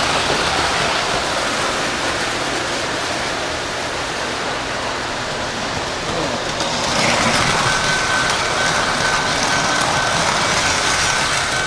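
Model trains running on O gauge three-rail metal track: a steady rumbling clatter of wheels on the rails. It grows louder about two-thirds of the way in as a freight train passes close by, and a thin steady high tone sounds alongside it from then on.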